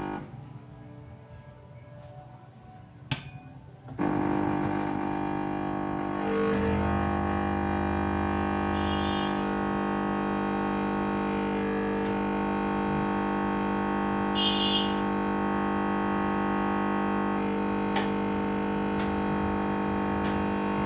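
Background music of sustained synthesizer chords that comes in about four seconds in, after a few seconds of low room noise broken by a single click.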